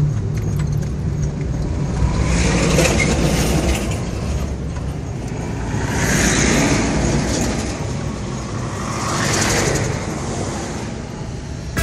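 Road traffic: a steady roar of tyres and engines with three vehicles passing one after another, each swelling up and fading away.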